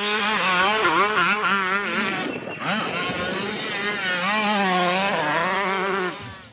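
Dirt bike engine revving hard, its pitch rising and falling again and again as the rider opens and closes the throttle, with a short break about two and a half seconds in. It fades out near the end.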